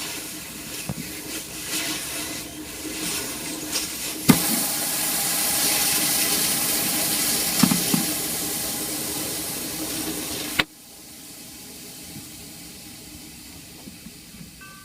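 A loud rushing hiss of gas starts with a sharp click about four seconds in and cuts off abruptly about six seconds later, with a lower steady rushing noise before and after it. It comes from refrigeration brazing work on a TXV: a torch flame or a gas flow.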